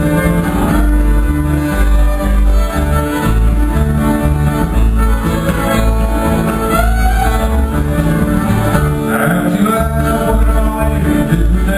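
A live band playing a lively country-folk tune, with fiddle and guitar over a steady bass beat.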